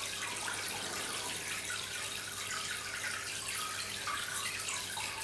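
Steady background hiss with a faint low hum, even throughout, with no distinct clicks or handling sounds.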